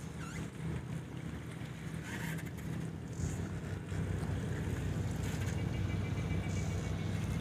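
Steady low drone of a ship's engine, growing a little louder about three seconds in, with wind buffeting the microphone.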